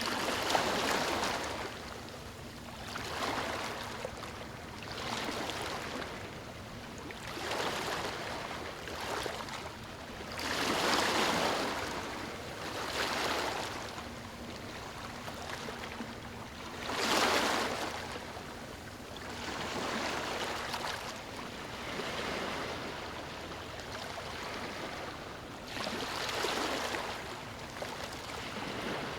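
Ocean surf washing onto a beach: waves break in rushing swells every few seconds, the strongest about a third of the way in and again just past halfway.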